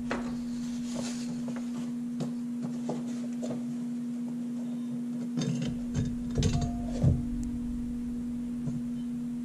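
Metal clinks and knocks about five to seven seconds in as the clutch drum of a Mitsubishi DCT470 (SST) dual-clutch transmission is lifted out of its clutch basket, with a few lighter clicks before. A steady low hum runs underneath throughout.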